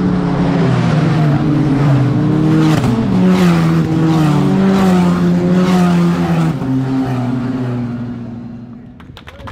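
Formula Regional single-seater race cars passing at high revs, engine note shifting in pitch, loudest around the middle and fading away near the end.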